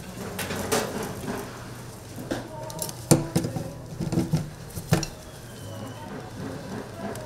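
Hinged bubble-waffle irons being handled and turned on their stands by their wooden handles: metal clanks and clicks, two sharp knocks standing out about 3 and 5 seconds in, over a low steady hum.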